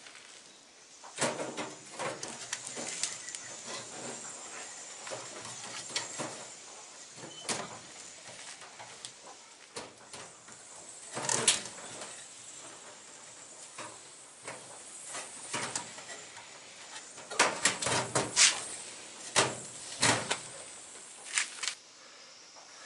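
Irregular knocks, scrapes and rattles of a sheet-metal controller box being handled and fitted against a steel filing cabinet, coming in clusters with a dense run near the end.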